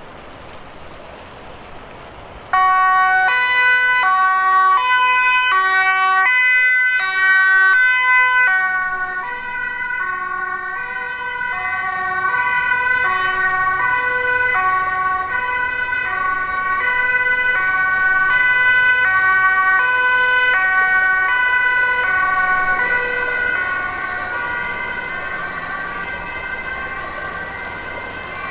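Two-tone emergency siren on a Dutch fire service van, alternating between two pitches as it responds to a call. It switches on suddenly about two and a half seconds in and grows slowly fainter over the last several seconds as the van drives away.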